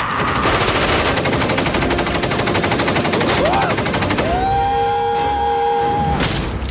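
Rapid automatic gunfire in a film action scene, a dense stream of shots for about four seconds. Then a steady high tone held for about two seconds, and a short loud burst near the end.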